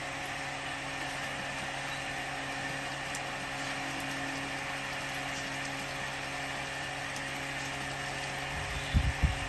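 Drain-cleaning machine running with a steady motor hum while its cable works inside a blocked drain pipe, with water pouring from the pipe into the pit. A few low thumps come near the end.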